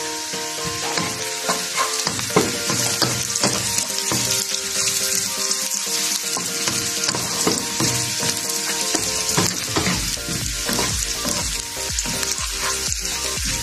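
Finely chopped pieces sizzling in hot oil in a pan while a wooden spatula stirs and tosses them, scraping and knocking against the pan surface.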